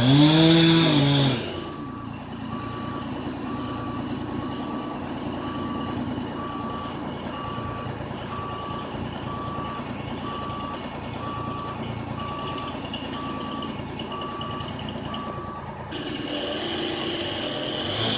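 A truck's reversing alarm beeping steadily, about once a second, over an engine running. It opens with a brief loud engine rev that rises and falls, and a louder motor starts up near the end.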